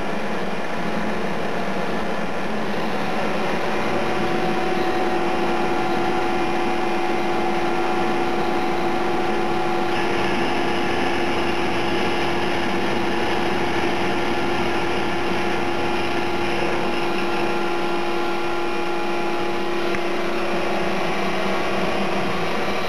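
Live-milling spindle of a Honor Seiki vertical turning lathe running an end mill through a slot in a thick metal plate: steady machining noise. A steady hum sets in a few seconds in, and a higher hiss joins about ten seconds in.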